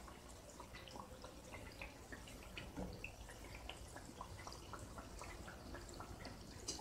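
Hot oil sizzling faintly around spinach and urad dal vadas deep-frying in a kadai, with many small scattered crackles and pops; the vadas are fried through on both sides.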